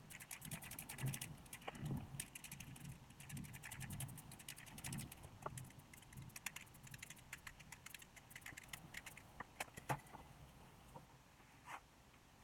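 Fast, irregular light clicks and taps, with a few soft low thumps, from hands working metal spray cans and a paper stencil on a wooden work board.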